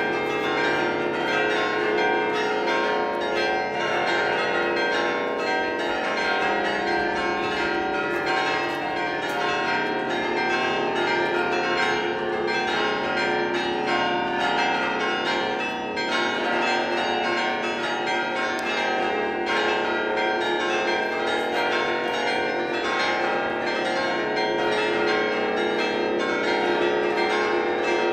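A large set of tuned church bells ringing a festive peal: many bells of different pitch struck in quick succession without a pause, their tones overlapping and ringing on.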